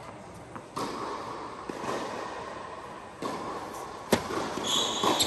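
A tennis ball bounced a few times on a hard court ahead of a serve, then the sharp crack of the racket striking the serve about four seconds in, the loudest sound here. A high squeak and another hit follow near the end.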